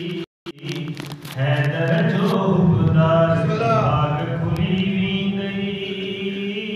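A man's voice chanting a melodic devotional recitation into a microphone, in long held and gliding notes. The sound cuts out for a moment just after the start.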